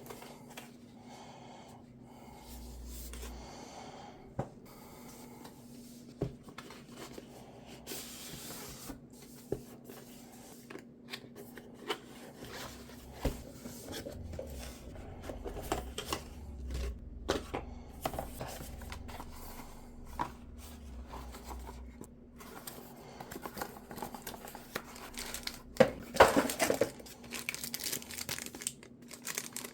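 Keyboard packaging being handled and opened: plastic wrap and paper crinkling and tearing, with scattered sharp clicks and taps and a louder burst of rustling near the end.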